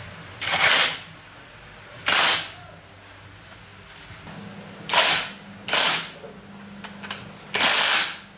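Five short bursts of hissing noise, each under half a second, starting and stopping abruptly a second or two apart, over a faint steady hum.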